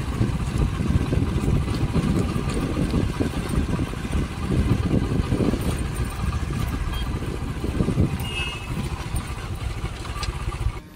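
Wind buffeting the microphone, a loud, unsteady low rumble.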